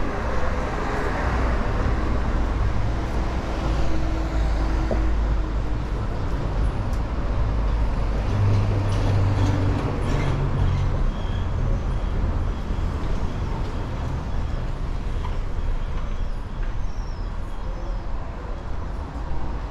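Street traffic: vehicle engines running and passing, with one heavier engine rumbling louder about halfway through.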